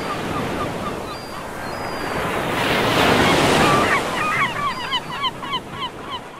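Surf washing in with wind, one wave swelling loudest about three seconds in, while a flock of birds calls in quick, short repeated notes that grow thickest near the end.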